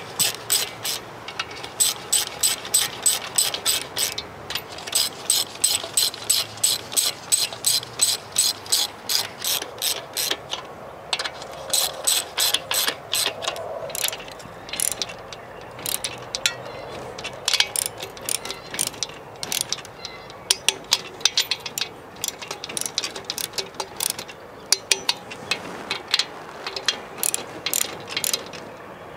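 Hand ratchet wrench clicking in quick regular runs, about four to five clicks a second, with short pauses between runs as it works a fastener during engine reassembly.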